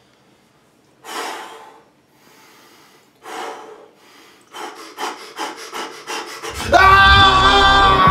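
Hand saw strokes: two slow separate strokes, then a quicker run of short back-and-forth strokes. About seven seconds in, loud music with sustained tones comes in over them.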